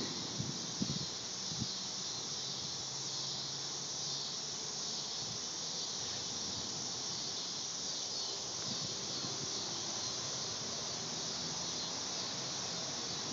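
A steady high-pitched hiss, with a few short low thumps of wind on the microphone in the first two seconds.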